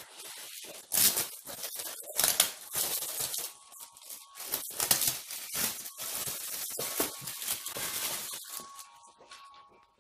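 A plastic bag and gift wrapping rustling, crinkling and tearing in irregular bursts as a present is unwrapped by hand.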